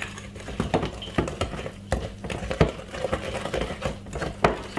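Wooden spoon mixing a stiff butter, sugar and flour mixture in a glass bowl: irregular scrapes and knocks of the spoon against the glass.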